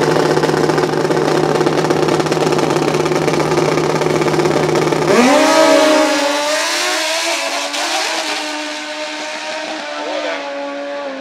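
Drag-racing dirt bike engines held at high revs on the start line, then launching about five seconds in: the engine note jumps up sharply and holds higher, growing fainter as the bikes pull away down the strip.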